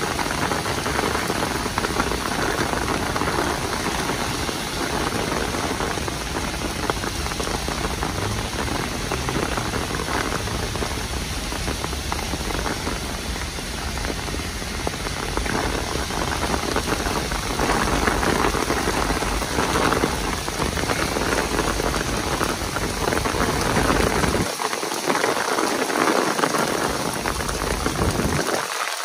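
Heavy downpour: a loud, dense, steady hiss of rain hitting the ground and surrounding surfaces. A low rumble underneath drops away near the end.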